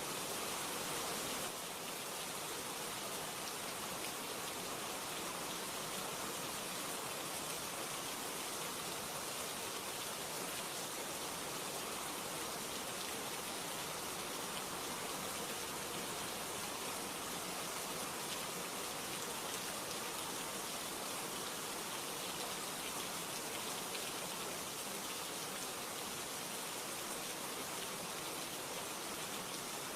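Steady rain falling, an even hiss of many drops without letup.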